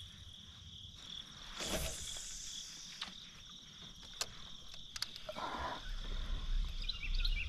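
Steady high-pitched insect chorus, with a brief rush of noise about two seconds in, a few light knocks, and small bird chirps near the end.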